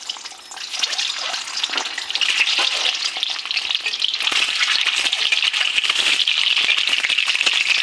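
Peeled boiled eggs, pricked with holes so they don't burst or spatter, sizzling in hot oil in a steel kadhai. The sizzle gets louder about two seconds in as more eggs go into the pan, and a metal spatula clicks and scrapes against the pan as it turns them.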